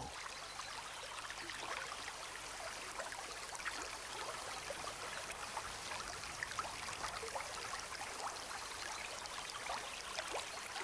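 Shallow river water flowing and trickling: a steady, soft rush of water with small splashy ticks scattered through it.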